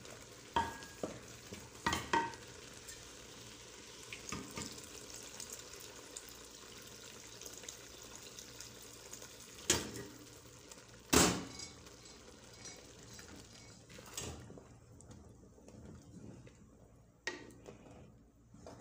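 A wooden spoon stirs rice cooking in a granite-coated pot over a steady sizzle, knocking against the pot several times; the loudest knock comes about eleven seconds in. The sizzling hiss fades out after about fourteen seconds, leaving quieter scraping and a knock.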